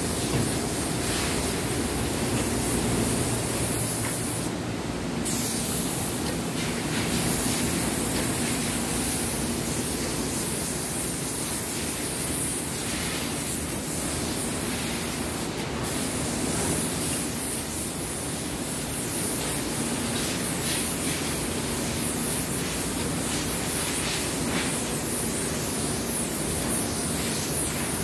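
Paint spray gun hissing steadily as it sprays. The high hiss drops away briefly about five seconds in and again around fifteen seconds.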